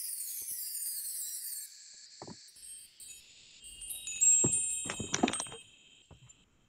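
Chime sound effects of an animated logo intro. A high, falling shimmer runs through the first second and a half, then a cluster of struck, ringing chime tones comes about four to five seconds in, the loudest part.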